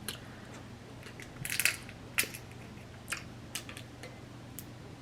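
Blue crab shell cracking and crunching as it is eaten close to the microphone: a short burst of cracks about a second and a half in, the loudest, then scattered single sharp clicks.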